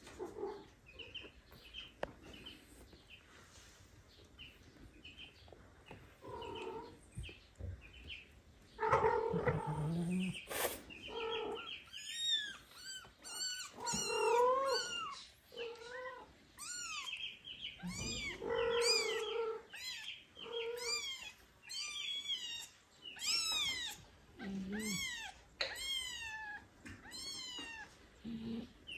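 A kitten meowing over and over in high, rising-and-falling calls, with deeper meows from an adult cat among them from about nine seconds in. Before that there are only faint short squeaks.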